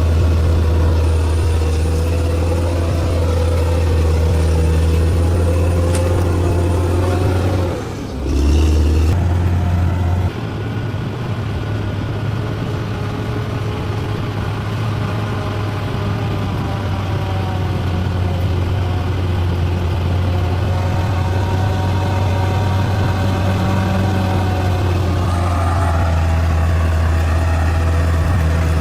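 Diesel engine of heavy earthmoving machinery running steadily with a deep, even hum, briefly dipping and changing tone about eight to ten seconds in.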